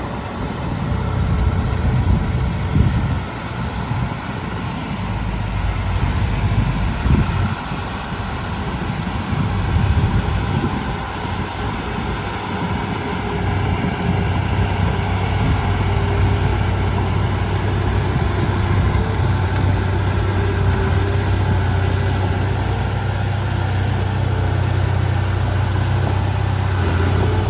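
Heavy diesel earthmoving machinery running, a low steady engine drone that surges unevenly in the first half and settles into a steadier hum from about halfway on.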